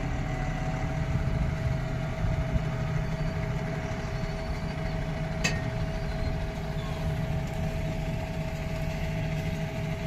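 Heavy diesel engines idling steadily, a low even hum with a steady whine over it. A single sharp click about five and a half seconds in.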